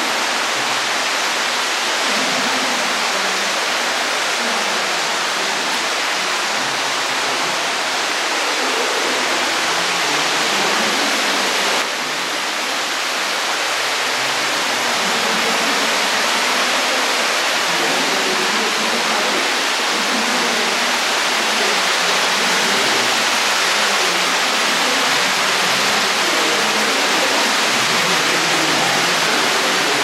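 Underground cave river rushing over rocks: a steady, loud rush of water, with a brief dip in level about twelve seconds in.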